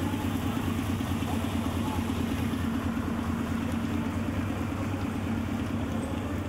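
Steady city street ambience dominated by a continuous low mechanical hum, under an even wash of noise.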